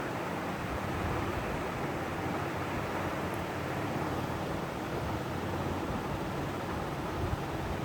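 Electric fan running steadily: an even rushing of moving air with a faint low motor hum underneath.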